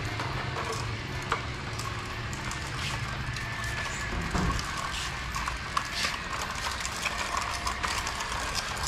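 Plastic toy trucks rattling and clattering as they are towed in a string-linked line over a concrete floor, with many small irregular clicks over a steady low hum.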